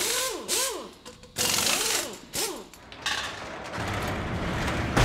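Produced mechanical sound effects for an animated title: three short bursts of clanking and whirring with whines that rise and fall, then a swelling rush that ends in a sharp hit near the end.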